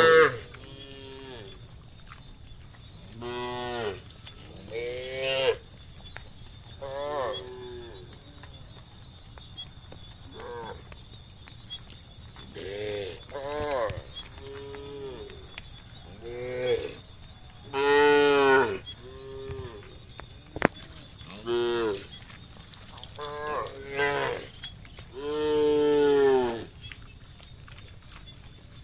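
A herd of cows mooing: a dozen or so calls from several animals, one after another and sometimes overlapping, each call rising and then falling in pitch. The longest and loudest calls come a little past the middle and again near the end.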